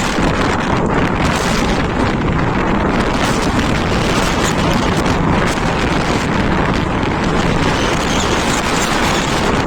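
Storm wind at sea blowing hard across the microphone, a loud steady rush, with the sea beneath it.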